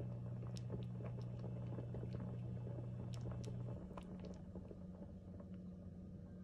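A pan of curry simmering, its thick sauce bubbling with small irregular pops and ticks. A steady low hum runs underneath and cuts out a little under four seconds in.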